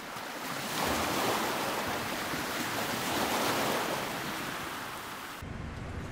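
Sea waves breaking and washing onto a beach, swelling twice. The surf cuts off abruptly near the end.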